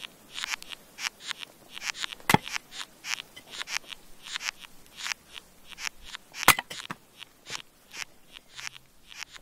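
Ants chewing wood, heard as an irregular run of small dry scratching clicks, several a second, with two sharper, louder clicks about two seconds in and again about six and a half seconds in.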